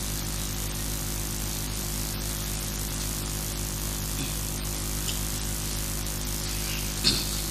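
Steady mains hum and hiss from a public-address sound system between recited phrases, with a brief sharp sound near the end.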